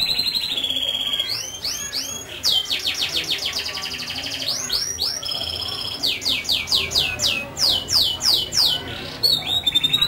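Domestic canary singing a long, continuous song: warbling passages, a fast trill of rapid repeated notes in the middle, and then a run of quick down-slurred whistles.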